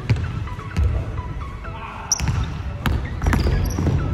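A basketball is dribbled on a hardwood gym floor, bouncing several times, while sneakers squeak on the court, sharply about two seconds in.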